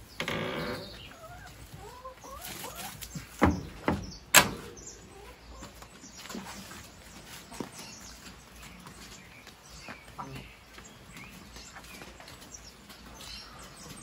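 Hens clucking at the start, then three sharp knocks, the last the loudest, between about three and a half and four and a half seconds in, followed by faint scattered farmyard sounds.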